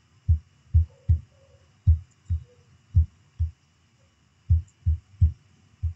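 A series of soft, low thuds, about eleven in six seconds and often coming in pairs, over a faint steady high whine.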